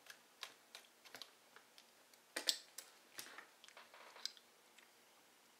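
Faint, irregular small clicks and ticks of a hex driver and a small screw being handled and turned into a metal RC crawler chassis, with a louder pair of clicks about two and a half seconds in.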